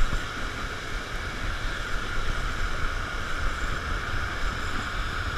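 Steady rush of water pouring over a low-head dam spillway, with a low rumble of wind on the microphone.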